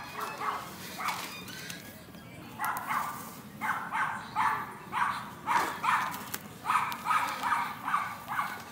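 A dog barking in a quick run of short barks, a few at first and then about two to three a second from about two and a half seconds in.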